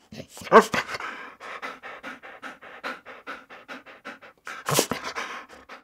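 A dog panting quickly, about six breaths a second, with two louder, sharper breaths, one about half a second in and one near the end.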